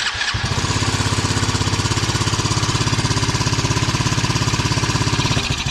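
Small single-cylinder engine of a mini quad (ATV) running at a fast, steady idle with rapid even pulses, cold and on full choke. Near the end its running turns uneven.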